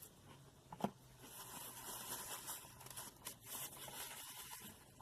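Faint crunchy chewing of battered fried food, a dense crackle of small crunches, with one sharp click a little under a second in.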